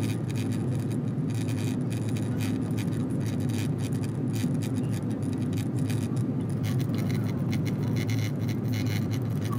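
Steady low cabin noise of an airliner in flight, from the engines and airflow, heard inside the cabin during the descent to landing.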